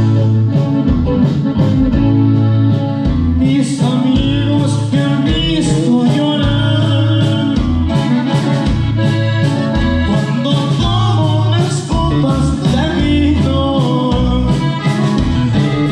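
Norteño band playing live: button accordion leading over acoustic guitar, electric bass and a drum kit, with the drums and cymbals coming in strongly after about three and a half seconds.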